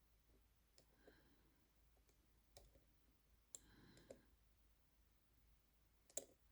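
Faint, scattered metallic clicks of a picking wire and tensioner working the levers of a tiny lever lock on a vintage bank night safe deposit bag. The clicks come singly at uneven intervals, the sharpest about three and a half seconds in and near the end.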